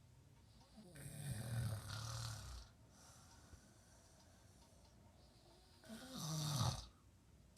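A baby snoring: two long snoring breaths, low buzzing with a breathy hiss, one about a second in and one near the end.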